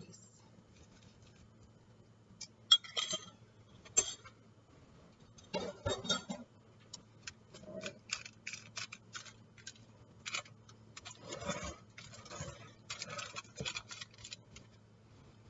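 Hands pressing a graham cracker crumb crust into a foil-lined glass baking dish: aluminium foil crinkling and crumbs scraping in irregular bursts, with a few sharp clicks. A faint steady hum lies underneath.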